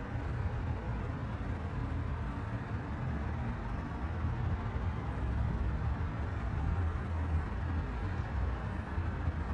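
Steady low outdoor rumble of distant city noise carrying across open water.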